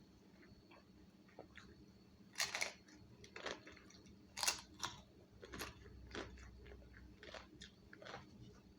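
Close-up chewing of crunchy food, most likely a tortilla chip: a string of sharp crunches, loudest about two and a half and four and a half seconds in, between quieter chewing.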